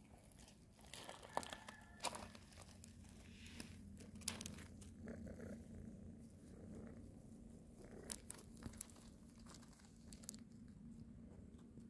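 Faint crinkling and rustling with scattered soft clicks, over a steady low hum.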